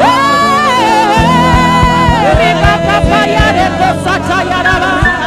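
Gospel worship music: a singing voice holding long, wavering notes over sustained low notes, with a steady drum beat coming in about a second in.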